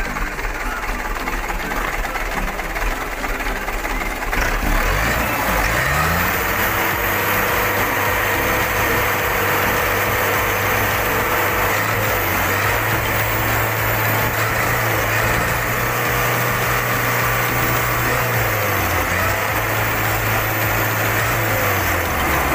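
Mitsubishi Canter truck's diesel engine running. About five seconds in it is revved up and held at high revs, stepping a little higher midway and easing back near the end. This is a test for the stuttering loss of power under throttle, after its fuel hose and hose bolt were cleaned.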